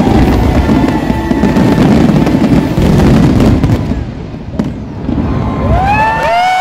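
A fireworks display: dense booming and crackling bursts over show music, easing off about four seconds in. Near the end, many voices start to rise into cheering.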